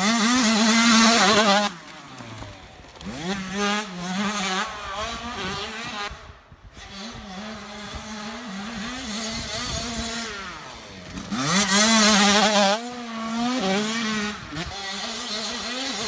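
Dirt bike engine revving up and down as it rides the trail, the pitch rising and falling with the throttle and gears. It is loudest as a bike passes close in the first couple of seconds and again about twelve seconds in, and quieter and farther off in between.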